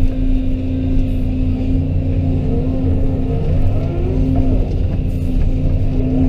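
Excavator diesel engine running steadily under load while it pushes a bulldozer that is out of gear, with wavering squeaks in the middle.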